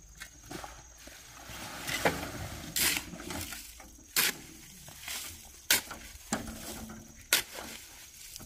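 Hard knocks on rock, about five sharp strikes spaced roughly a second and a half apart.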